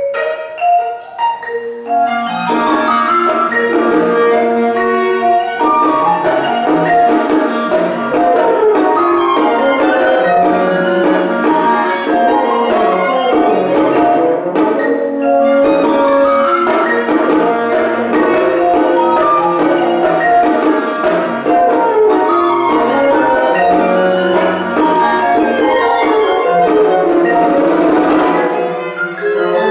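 Mixed chamber ensemble of 25-string gayageum and western instruments playing contemporary classical music: bowed violin and cello lines over struck, marimba-like pitched percussion in a dense, continuous texture that fills out about two seconds in.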